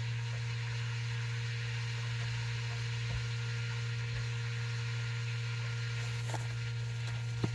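Steady low hum with a light hiss underneath, and a couple of faint clicks near the end.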